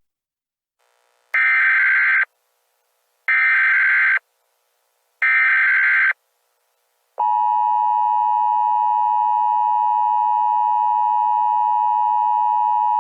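Emergency Alert System signal: three short bursts of digital header data tones about a second apart, then, from about seven seconds in, the steady two-tone EAS attention signal.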